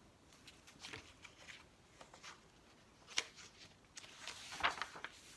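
Pages of a hardcover picture book being handled and turned: a series of soft paper rustles, a sharp click about three seconds in, and a longer rustle toward the end.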